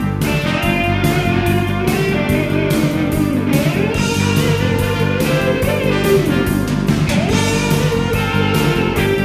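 Background music: a guitar-led rock track with a steady beat.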